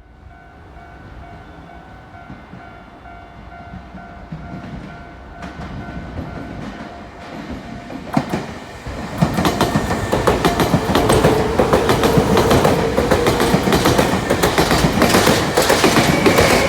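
Electric commuter train approaching and passing close by, growing steadily louder, with rapid clicks of its wheels over the rail joints once it is alongside, about nine seconds in. Steady high tones sound during the first half.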